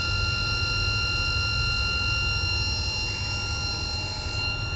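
Crossflow membrane filtration unit's pump running steadily during filtration, a low hum with a constant high whine above it.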